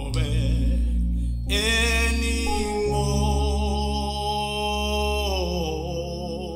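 Slow gospel worship music: an electronic keyboard holds sustained chords while a singer holds one long note from about a second and a half in until about five seconds in.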